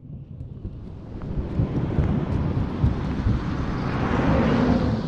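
A low rumbling rush of noise fading in from silence and building steadily, loudest about four seconds in, with a few faint clicks on top.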